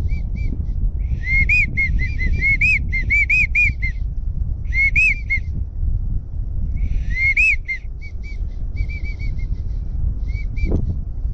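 Wigeon-style whistling: runs of short, high, rise-and-fall whistled notes, some in quick strings, over low wind rumble on the microphone. A single sharp knock sounds near the end.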